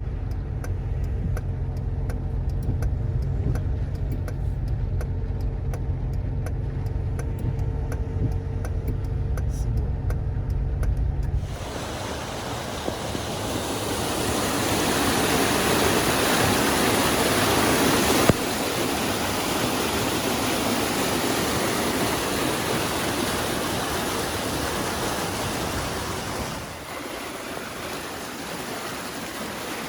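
A steady low rumble with faint regular ticking, then a sudden cut to the loud, even rushing of a river swollen by typhoon rain. The rushing changes level at further cuts later on.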